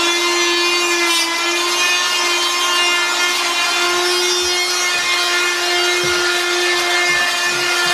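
A power tool running at one steady pitch: a buzzing whine with many overtones.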